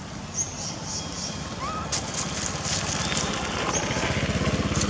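A motor engine running, its low, rapid pulsing growing louder over the last couple of seconds. A few short, high chirps come in the first second or so.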